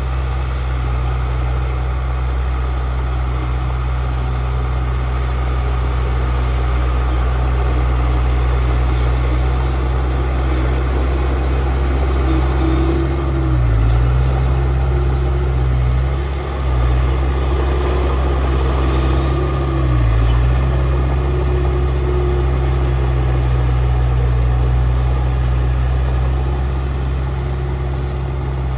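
Heavy diesel engine of earthmoving machinery running steadily under work. Its note dips briefly three times around the middle, and a faint higher whine comes and goes in the second half.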